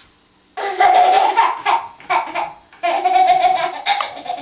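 A toddler laughing hard in a quick run of high-pitched bursts, starting about half a second in.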